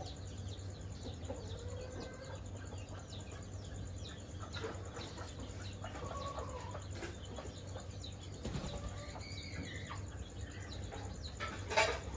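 Chickens clucking softly with scattered high, falling peeps of chicks, over a steady low hum, and one louder sharp call near the end.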